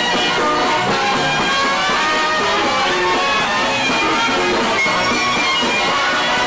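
A string band playing live on stage: fiddles, banjo and double bass, with a piano.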